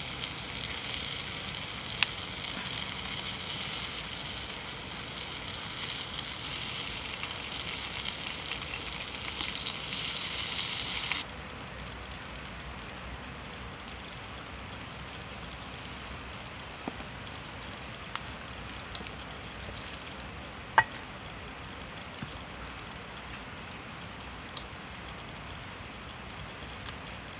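Cow heart sizzling on a fire-heated stone slab: a steady hiss that cuts off suddenly about eleven seconds in. After that, a quiet steady background with a few faint taps and one sharp click about two-thirds of the way through.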